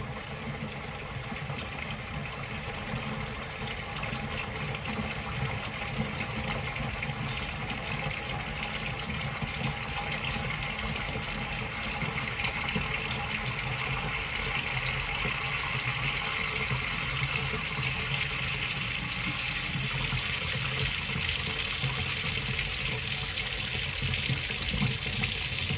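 Kitchen faucet running steadily into a stainless steel sink and down the open basket-strainer drain, growing gradually louder toward the end.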